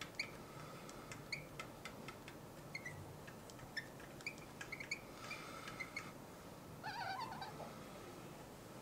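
Felt-tip marker squeaking and tapping on a glass writing board in many short, faint high chirps as words are written, with a longer wavering squeak about seven seconds in.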